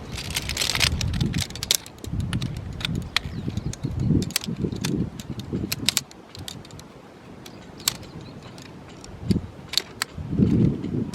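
Camping gear being handled and set up: light metallic clicks and clatters, with rustling and low thumps, busiest in the first half and again near the end.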